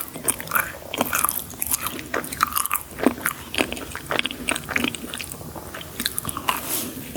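Close-miked eating of sweets: crunchy bites and chewing, with a quick, irregular run of small crisp crackles.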